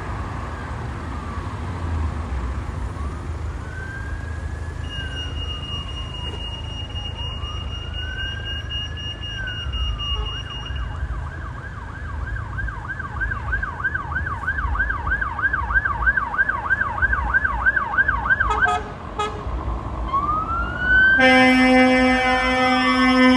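Fire engine siren on the move: a slow rising and falling wail switches about ten seconds in to a fast yelp of about four cycles a second, then goes back to a wail. A couple of seconds before the end a loud, steady air horn blast sounds over it, the loudest thing here. Engine and road rumble run underneath.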